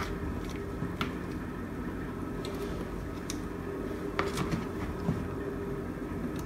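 Cooked pasta being added by hand into a pot of cheese sauce, with a few light clicks of utensils against the pot over a steady low hum.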